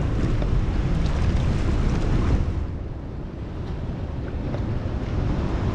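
Wind buffeting the microphone over open sea, with water sloshing close by. It turns quieter and duller for a few seconds from just before halfway.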